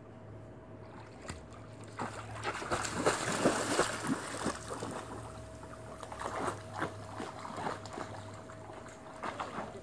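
Rottweiler splashing into a swimming pool and paddling through the water. The splashing is heaviest about two to four seconds in, then comes in lighter bursts as the dog swims, over a faint steady hum.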